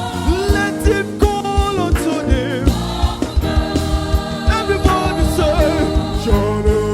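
Gospel band and choir performing live: sustained keyboard chords and a steady drum beat under sung melodic lines.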